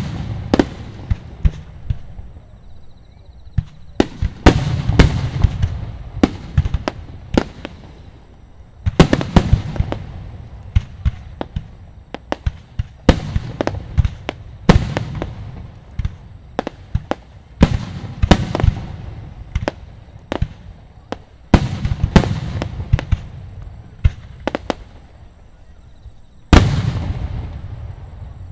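Aerial fireworks shells bursting in quick succession: sharp booms, often several together, each trailing off in a rumbling echo, with the loudest burst near the end.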